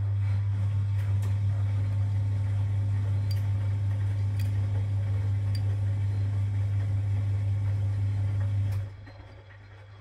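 1962 Constructa K4 washing machine's drum motor running with a steady low hum as it turns the drum through a wash stroke, then cutting off about nine seconds in. A few faint ticks sound over it.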